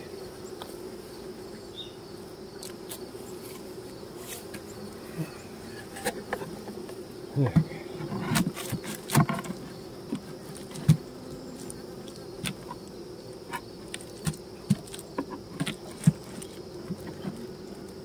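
Honey bees buzzing steadily around an open hive, with scattered wooden knocks and scrapes as a hive box is handled and set down on the hive body, the loudest cluster of knocks about halfway through.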